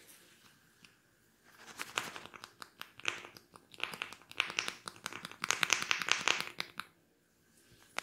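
Fingers rubbing and tapping rapidly on a person's ear, a fast run of scratchy strokes starting about a second and a half in and stopping about a second before the end.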